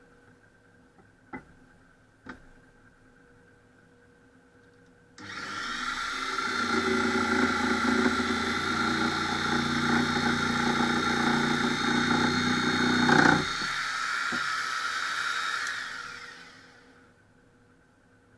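Parkside PSTK 800 B2 pendulum jigsaw starting about five seconds in and running loud and steady, with a deeper, heavier sound through the middle. Near the end it runs lighter, then winds down and fades out. Two light clicks come before it starts.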